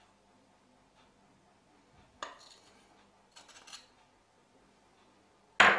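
Kitchen utensils clinking against a china plate and a stainless steel pot as chocolate spread is scraped into the pot: a clink about two seconds in, two softer ones a second later, and a sharp loud knock near the end.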